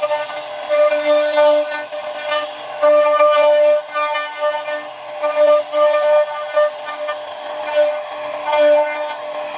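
CNC router spindle whining at one steady pitch while its carving bit cuts into wood, the cutting noise swelling and easing as the bit works along the relief.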